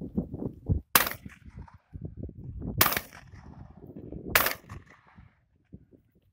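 Three shotgun shots, the second about two seconds after the first and the third about a second and a half later, each trailing off briefly.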